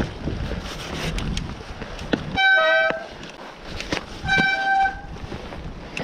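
Mountain bike disc brakes squealing twice, each a steady high-pitched squeal of about half a second, over the rattle and rustle of tyres on a rocky, leaf-covered trail and wind on the microphone.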